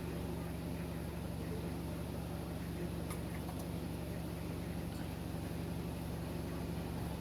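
A steady machine hum at a constant pitch, with a few faint clicks.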